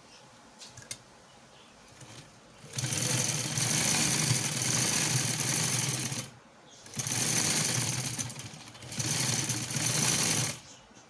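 Sewing machine stitching through folded fabric in three runs: one of about three seconds, then two shorter runs of under two seconds each, with brief pauses between. A couple of light clicks come in the first second.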